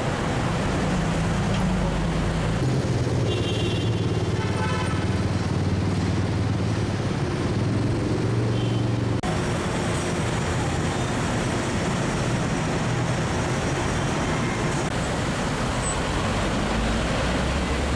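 City street traffic: the engines of passing cars and buses running steadily, with a brief high tone about four seconds in. The sound changes abruptly about nine seconds in.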